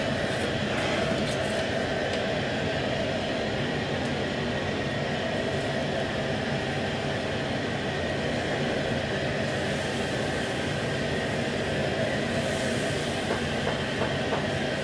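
Steady roar of a gas wok burner on high flame, with the sizzle of seafood and vegetables being stir-fried in the wok.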